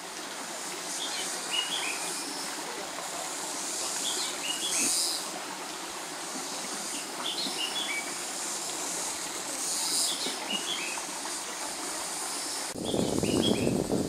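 A bird repeating a short phrase of a few quick, falling notes about every three seconds, over a steady hiss. Near the end a louder low rumbling noise comes in.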